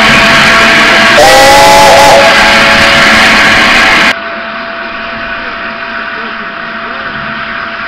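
Steam locomotive 71000 'Duke of Gloucester', a BR Standard Class 8 Pacific, blowing off steam with a loud hiss, and a short whistle blast of about a second starting a second in. The loud hiss cuts off suddenly about four seconds in, leaving a quieter steady hiss from the engine.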